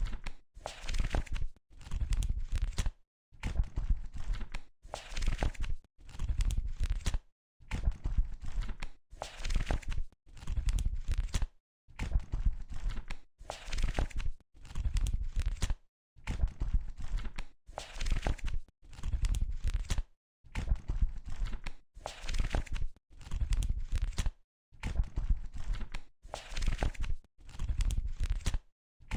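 Book pages being flipped one at a time: each turn is a short papery rustle lasting about a second, coming about once every second and a half with brief silent gaps between.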